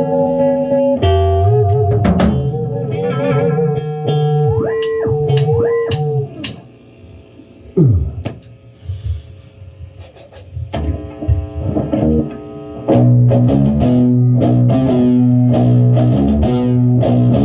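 Rock band rehearsing: guitar playing held notes with vibrato and string bends, then a long downward pitch slide about eight seconds in. A quieter stretch with scattered drum hits follows, and the full band comes back in with steady chords about thirteen seconds in.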